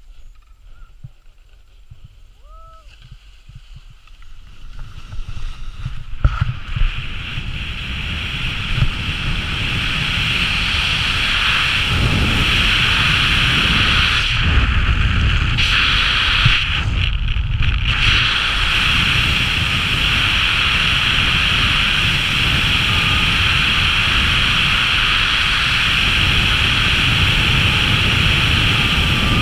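Wind rushing over the camera microphone during a speed-flying take-off on skis and the flight that follows, building from quiet over the first several seconds to a steady loud rush. A short chirp sounds about three seconds in.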